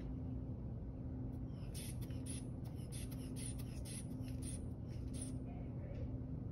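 Rubber inflation bulb of a manual blood pressure cuff squeezed rapidly by hand, a quick run of short airy hisses about three a second, pumping the cuff up for a reading. The pumping stops a little after five seconds in.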